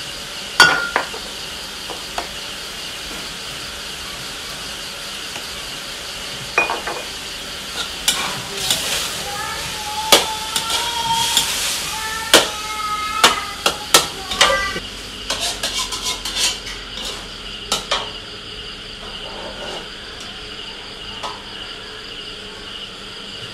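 Metal spatula scraping and knocking against a steel wok while shrimp are stir-fried, each strike ringing briefly. The strikes come mostly between about 8 and 18 seconds in, over a steady high hiss.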